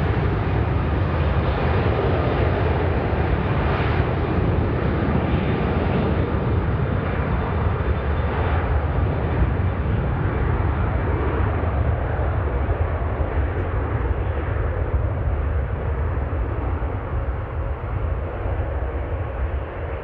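Widebody jet airliner's engines running at high power as it rolls down the runway: a loud, steady rumble and roar that slowly fades toward the end as the aircraft moves away.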